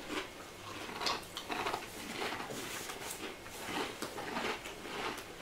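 Crunching and chewing of Fujiya Home Pie flaky pastry biscuits: a string of short, irregular crisp crackles, several a second.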